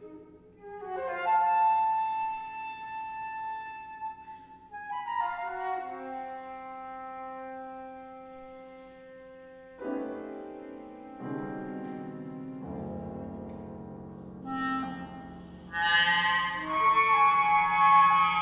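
Contemporary chamber music for flute, clarinet, piano, harp and vibraphone: long held flute and clarinet notes enter one after another over soft piano and harp, with a sharp struck chord about halfway through. Lower notes join, and the texture swells to a louder, fuller sound near the end.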